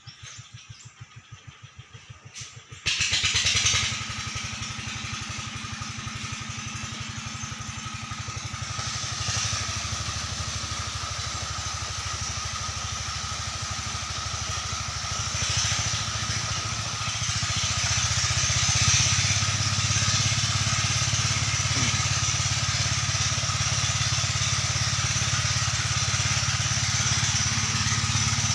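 Engine of a river sand-suction pump, ticking over quietly at first, then picking up suddenly about three seconds in to a steady, much louder run. It grows louder again in a few steps later on.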